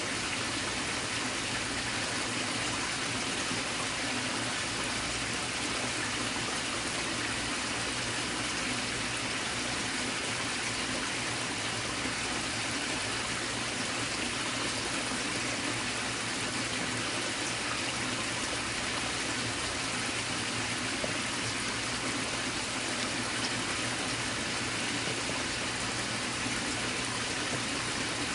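Steady, even rushing noise that holds the same level throughout, with no separate clicks or knocks standing out.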